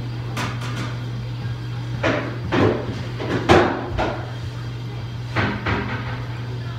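A steady low hum under several scattered knocks and clatters, the loudest about halfway through.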